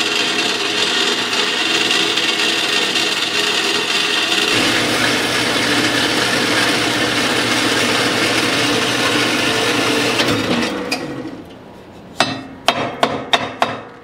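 JET horizontal metal-cutting bandsaw running and cutting through steel rectangular tube: a steady loud grinding whine that deepens about four and a half seconds in. The saw winds down near ten seconds in and is followed by several sharp metal clanks as the cut piece is handled.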